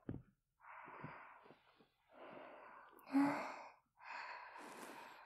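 A woman's soft, slow breathing close to a binaural microphone: three long breaths, with a short voiced hum in the middle one.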